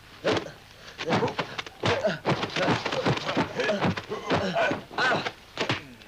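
Kung fu film fight sound effects: a rapid run of sharp dubbed punch and kick impacts, about three a second, mixed with the fighters' short shouts and grunts.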